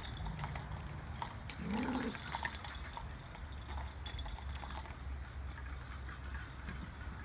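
Golden retriever puppies playing and chewing on toys: light clicks and clatter of plastic toys hanging from a PVC frame, and about two seconds in one puppy gives a short rising cry.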